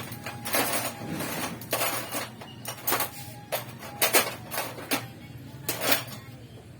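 About a dozen irregular clinks and knocks of hard objects being handled, over a faint steady low hum.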